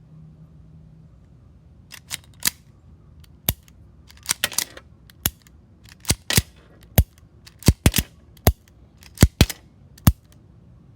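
CF98 (QSZ92) 9mm pistol being cycled by hand with snap caps fed from a modified Beretta 92 magazine: a string of sharp metallic clacks from the slide being racked and the action working, starting about two seconds in, several in quick pairs. The snap caps feed and eject without a hitch.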